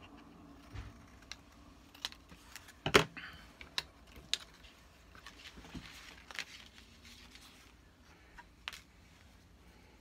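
Scissors snipping as a small paper tag is cut out by hand, among scattered clicks and taps of paper and tools being handled on a cutting mat, with one louder snap about three seconds in.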